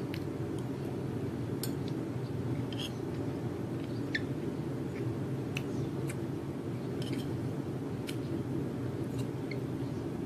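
A metal spoon clinking and scraping against a ceramic plate of rice, about a dozen short irregular clinks, over a steady low background hum.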